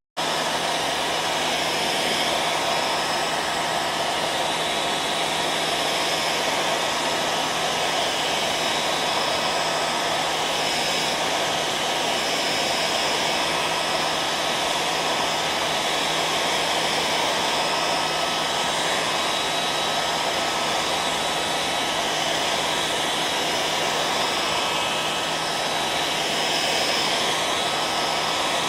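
Hair dryer running steadily: a constant rushing blow of air with a thin, unchanging whine over it.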